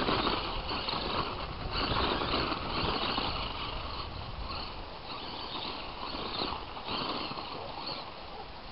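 Tamiya Blackfoot radio-controlled monster truck driving across gravel: its brushed electric motor and gearbox whine with the tyres on the stones, coming in surges as the throttle is worked.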